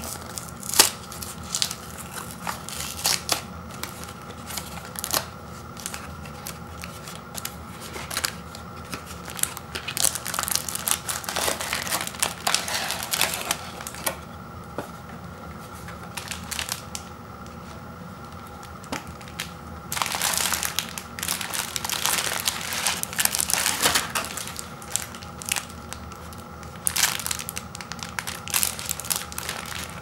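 A thin cardboard box being pried and torn open at its flap, with sharp clicks, then cellophane-wrapped microwave popcorn bags crinkling in several bursts as they are pulled out and handled.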